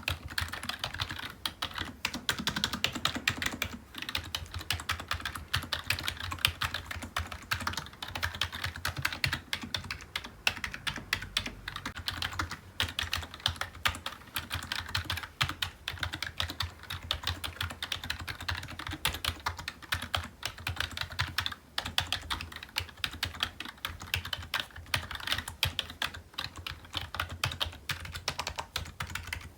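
Continuous fast typing on a computer keyboard: a dense, unbroken stream of key clicks, with only brief lulls now and then.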